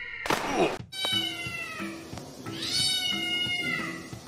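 A cat meowing twice, long drawn-out meows that each fall in pitch, over background music with a light repeating beat. A short burst of noise comes just before the first meow.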